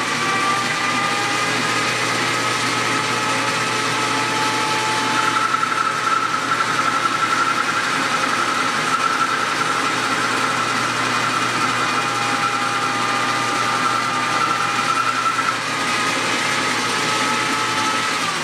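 South Bend 13-inch metal lathe running at top speed while taking a cut on a steel bar, with a steady, slightly wavering whine from its slipping motor drive belts, which are too loose. The whine starts to fall at the very end as the spindle winds down.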